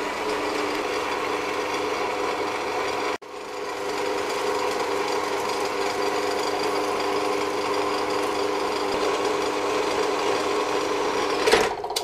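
Horizontal metal-cutting bandsaw running, its blade cutting through aluminium round bar with a steady humming whir. The sound drops out abruptly for a moment about three seconds in, and stops with a short clatter just before the end.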